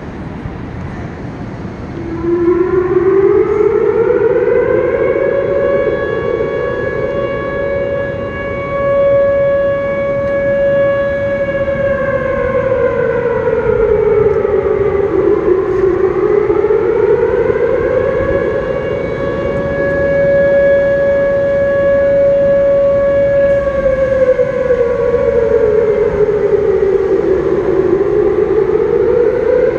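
Outdoor warning siren sounding its monthly test signal, a wail. It starts about two seconds in, rises in pitch, holds for several seconds, falls, then climbs and holds again, and begins a third rise near the end.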